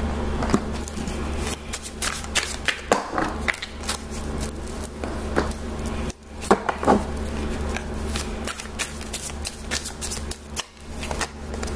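A deck of oracle cards being shuffled by hand: a long run of quick, irregular card flicks and clicks, over a steady low hum.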